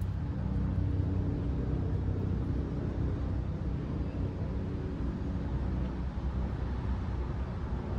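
Steady low motor rumble with a faint hum.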